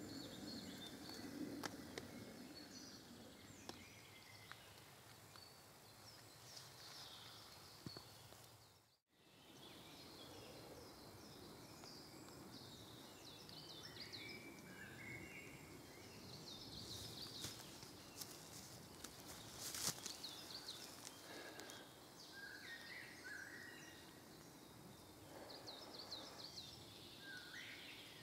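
Faint woodland birdsong: several small birds chirping and trilling over a soft background hiss, with a few faint clicks. The sound drops out completely for a moment about nine seconds in.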